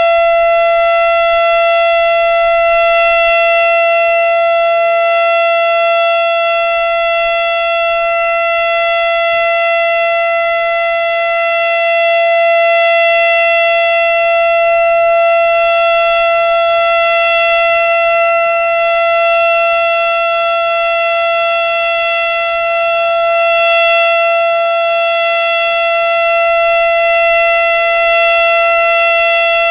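Darley STH-10 tornado siren sounding the Alert signal, a steady tone held at one pitch with no rise or fall, its loudness slowly swelling and fading. It is the monthly test sounding of the outdoor warning siren.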